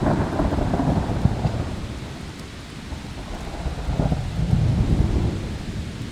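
Thunder rumbling over steady hard rain: one roll at the start that fades within a couple of seconds, and a second rumble that builds about halfway through, peaks about a second later and dies away.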